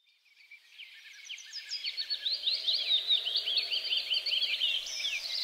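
Many birds chirping and calling at once, the quick overlapping chirps fading in from silence over the first two seconds and then holding steady.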